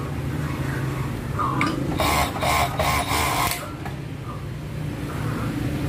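Four-thread overlock (serger) sewing a test seam on stretch fabric after its thread tensions have been adjusted. The motor hums steadily, and about two seconds in the machine runs fast for about a second and a half.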